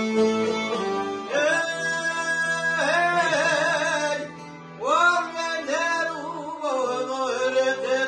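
Albanian folk music played on plucked çifteli lutes, violin and accordion, with a man's voice entering in wavering sung phrases about a second in and pausing briefly around the middle.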